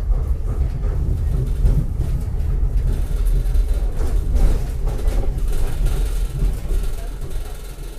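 Tram running along its rails: a loud, steady low rumble that eases off near the end.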